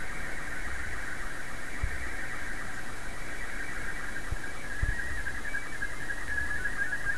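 Slow-scan television (SSTV) signal on the shortwave receiver's audio: a fast, high-pitched warbling squeal of shifting tones over a steady hiss of band noise, carrying a Scottie S2 picture line by line. There are a few faint low thumps.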